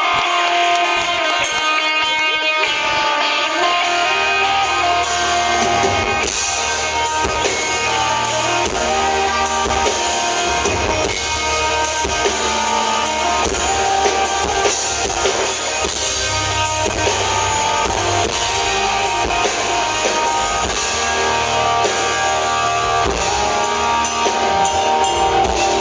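Live rock band playing a song's instrumental introduction on guitars and drums. The guitar starts alone, and bass and drums come in after a few seconds.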